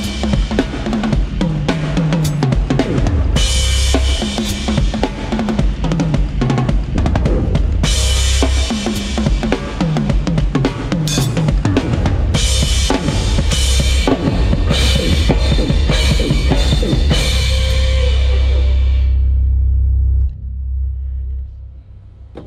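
A live band playing loud through a PA: drum kit with bass drum, snare and cymbal crashes over a heavy bass line with sliding runs. The band stops together about 20 seconds in, leaving the ring to die away.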